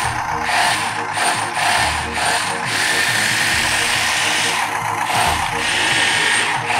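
Motorised chassis of a Mould King 20014 building-block RC Tiger tank driving: electric motors whining through plastic gearing, with the tracks clattering. It's very loud.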